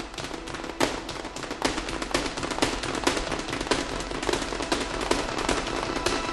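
Rapid, irregular clatter of sharp percussive strikes, several a second, over faint music.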